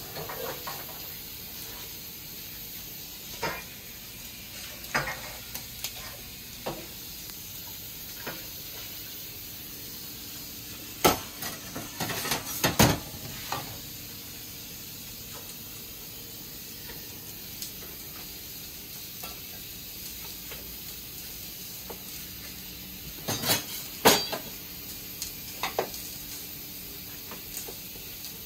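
Potatoes being washed: a steady rush of running water with scattered knocks and clatters of potatoes against a pot or bowl, louder bunches of them about halfway through and again near the end.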